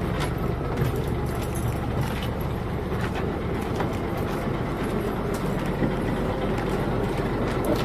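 Steady low drone of a river launch's engine running at a constant speed.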